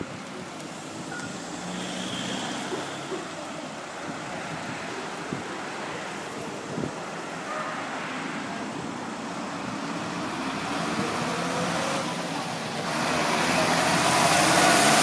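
Road traffic: cars driving past on a town street, a steady rush of engines and tyres that grows louder in the last few seconds as a vehicle passes close.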